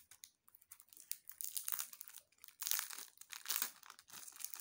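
Clear plastic sleeve around a CD jewel case crinkling and rustling as hands turn the case over, in irregular bursts with small clicks, loudest in the second half.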